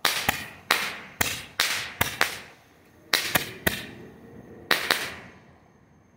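Boomer Fireworks Color Pearl with Bang Roman candles firing: about a dozen sharp bangs, each echoing away, coming irregularly in quick clusters and stopping about five seconds in.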